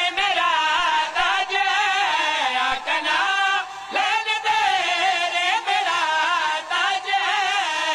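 Man singing a devotional qasida refrain in long, wavering melodic phrases.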